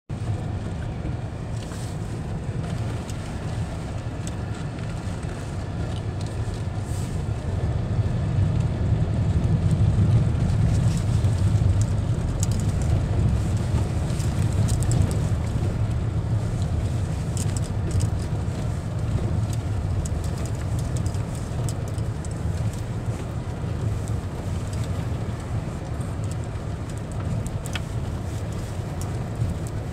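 Off-road car driving slowly on a loose gravel and dirt track, heard from inside the cabin: a steady low rumble of engine and tyres, with scattered small ticks and clicks from the gravel. It grows a little louder for a few seconds partway through.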